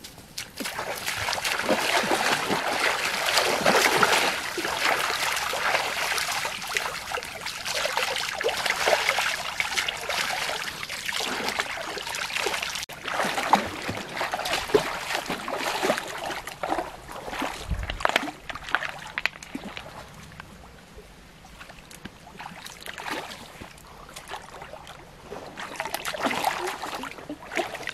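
Water splashing and sloshing as people wade through a shallow stream and sweep their hands through the water. It is loudest through the first half, dies down, then picks up again in a short burst of splashing near the end.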